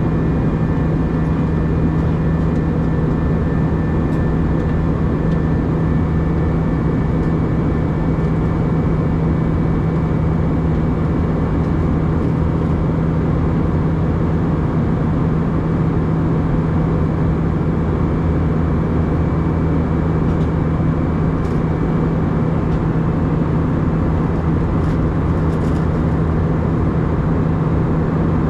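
Steady roar of an Airbus A319's jet engines and rushing air, heard inside the passenger cabin in flight, with a constant low hum under it and a faint high whine that fades about six seconds in.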